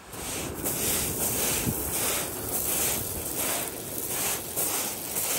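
Footsteps crunching on shingle at a brisk walk, about two to three steps a second.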